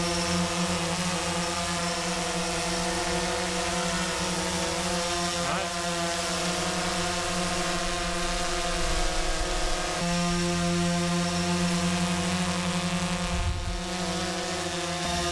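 DJI Phantom 3 Standard quadcopter's motors and propellers in flight, a steady buzzing hum that wavers slightly in pitch and shifts about two-thirds of the way through. The drone, with its new housing and propellers, is running smoothly.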